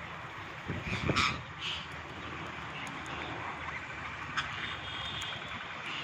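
Flock of Alexandrine parakeets calling together: a dense, steady chatter with harsh screeches on top, the loudest burst a little over a second in.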